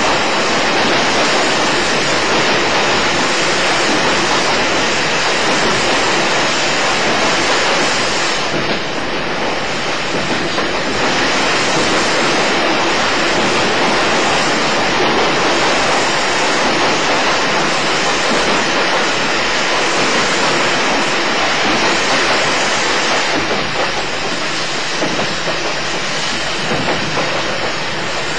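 JNR Class 80 electric multiple unit motor car MoHa 80342 running at speed, a steady rushing noise with a slight dip about nine seconds in.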